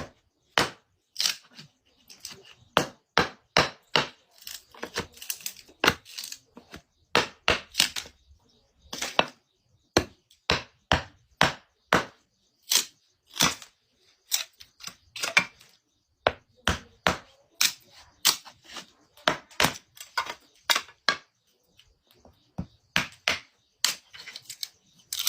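Firewood being chopped with a blade: a run of sharp chopping strikes, one or two a second and unevenly spaced, with a short pause about three quarters of the way through.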